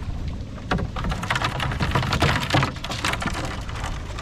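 Water drops falling and splashing onto water in many quick, irregular drips, over a low steady hum.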